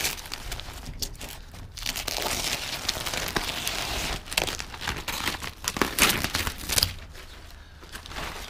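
Newspaper masking being pulled off a painted door and crumpled up, the paper crinkling and tearing in irregular bursts.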